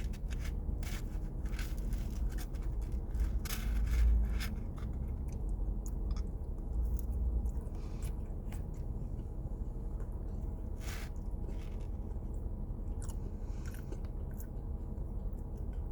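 Close-up chewing of a pumpkin spice cinnamon roll: irregular small mouth clicks and smacks, busiest in the first five seconds, over a steady low hum.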